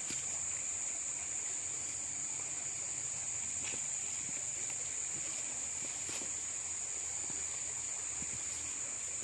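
Forest insects droning steadily in one high, even tone with a fainter lower tone beneath, over the even rush of river water.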